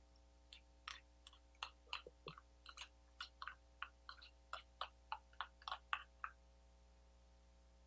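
Faint wet chewing and mouth clicks from a person eating canned cat food: a run of short, irregular smacks about three a second that stops over a second before the end.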